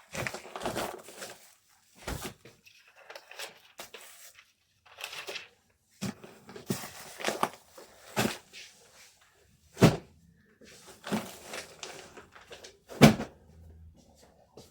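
Packing sounds: packaging and items being handled, rustling in short stretches with clicks. Two sharp knocks of something set down hard, one about two-thirds through and a louder one near the end.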